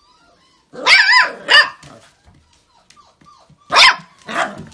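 Beagle puppy barking: a faint whine, then four short high barks in two pairs, the first pair about a second in and the second near the end.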